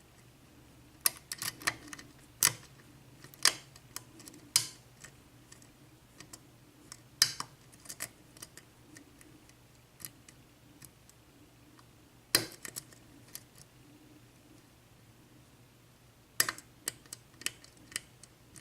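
Lock pick and tension wrench working the pin stacks of a Dorma mortise lock cylinder: irregular sharp metallic clicks, some in quick clusters, with long quiet stretches between. The clicks include the pins dropping as tension is lost and being set again.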